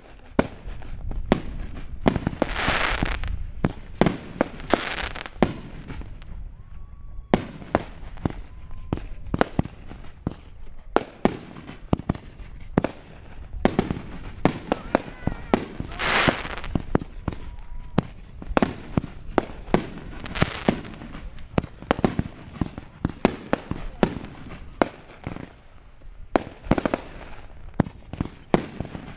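Fireworks going off close by: a rapid, uneven run of sharp bangs and pops, with dense crackling bursts about two seconds in, around five seconds and around the middle.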